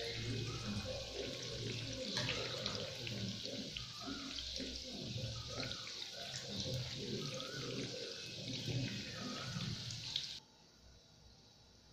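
Chana dal vadas deep-frying in hot oil: a steady sizzle with scattered crackling pops, which falls away suddenly near the end.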